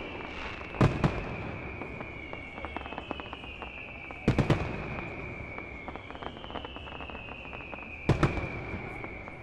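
Aerial firework shells bursting: three double booms about four seconds apart, with crackling between them. A high whistle repeatedly slides down in pitch over a couple of seconds.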